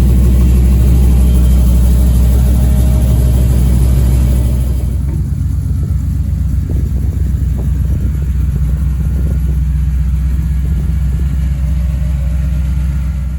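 Engine running steadily on its first start, with a loud, low, even note; it eases down a little about four and a half seconds in.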